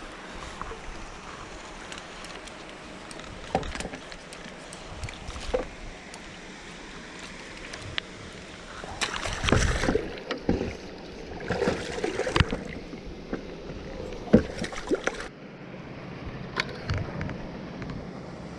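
Hooked carp splashing and thrashing at the water's surface as it is played and drawn into a landing net, loudest in a run of splashes from about halfway through, with scattered knocks from handling the rod and net.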